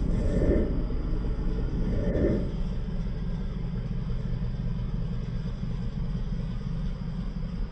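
A 2015 Dodge Charger R/T's 5.7-litre Hemi V8 idling, a steady low rumble, with two brief muffled puffs of wind on the microphone about half a second and two seconds in.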